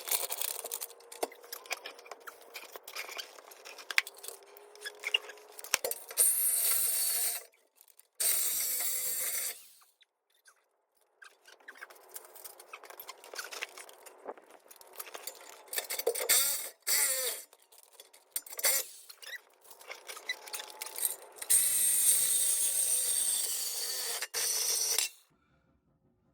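Reciprocating saw cutting through the steel exhaust pipe to take out a stock muffler, in three runs of a second and a half to three and a half seconds, the last the longest. Between the cuts, metal clinks, scrapes and clanks of tools and pipe.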